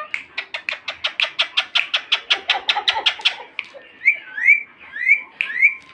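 Pet parrot calling in a fast run of short, sharp notes, about seven a second, for some three seconds, then giving a few separate rising whistles.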